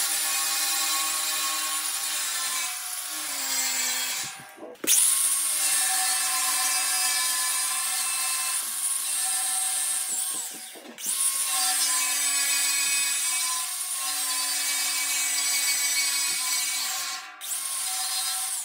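Angle grinder with a 60-grit flap disc grinding welds on a steel drum flush: a steady high whine over a grinding hiss. Twice, about four and a half seconds in and again about eleven seconds in, the whine drops away briefly and spins back up.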